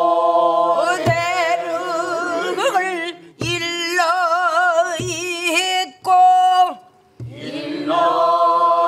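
Pansori singing: a woman's voice leads with the class joining in, on long held notes with wide, wavering vibrato. Four low strokes on a buk barrel drum, struck with a stick, keep the rhythm under the voices.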